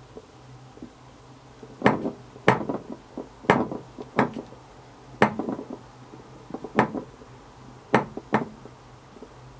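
A trackball's ball batted around by a cat, clacking and knocking against a hard surface: about eight sharp, irregular clacks, the first about two seconds in.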